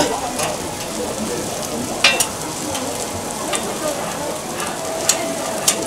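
Seafood pancake batter sizzling steadily on a flat iron griddle inside square metal frames, with a few sharp metal clicks as the frames are handled with pliers.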